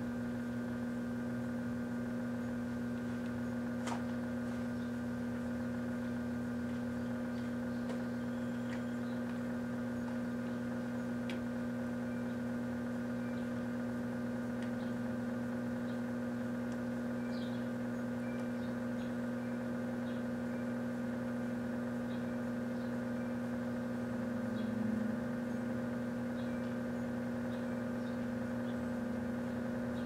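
Microwave oven running with a fluorescent black-light tube glowing inside: a steady electrical hum, with a few faint ticks and a brief swell in level near the end.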